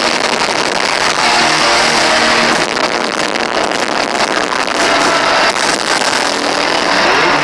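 Live heavy rock band playing loud, distorted guitars and bass, recorded through an overloaded microphone so that it comes out as a dense, clipped wash with held low notes changing every second or so.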